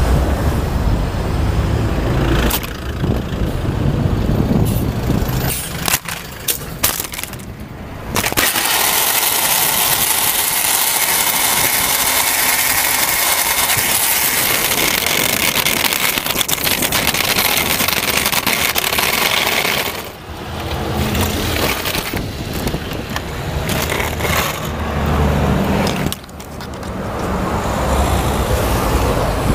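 Crashed drone caught under a moving car and dragged along the asphalt: rumbling road and tyre noise with sharp knocks and cracks of its plastic body against the road. After about eight seconds it turns into a loud, steady scraping hiss that lasts about twelve seconds before the rumble returns.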